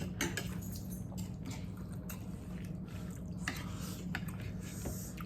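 People eating at the table: wet chewing and lip smacks with a few light clicks, over a low steady hum.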